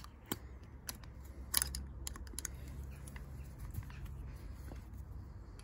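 Light metal clicks and scrapes of a small screwdriver working against the Yamaha XV535 Virago's front brake master cylinder body while prising out the rubber seal, with the sharpest click about a second and a half in, over a low steady hum.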